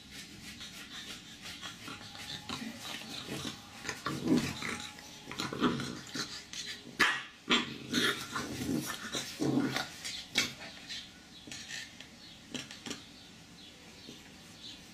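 Chow Chow puppies play-fighting: a run of short puppy growls and yips between about two and eleven seconds in, with a couple of sharp clicks near the middle, then quieter.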